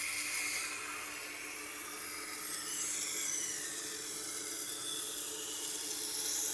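Steel blade of a Victorinox kitchen knife ground against a rotating coarse sharpening wheel in one long pass, a steady hissing grind that shifts in pitch as the blade is drawn across the wheel, over the motor's constant hum. The blade is being reprofiled to remove a belt-sander edge.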